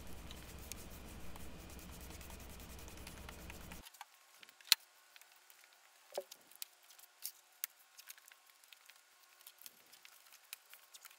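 Faint low steady hum for the first four seconds, then scattered light clicks and taps of handling a large sheet of shop-made wood veneer at a workbench, with one sharper click a little before the middle.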